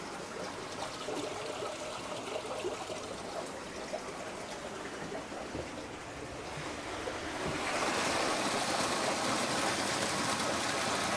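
Pond water running in through a just-opened bottom valve to fill a newly installed drum filter chamber on its first fill. The flow is a steady trickling rush that grows louder and fuller about seven seconds in.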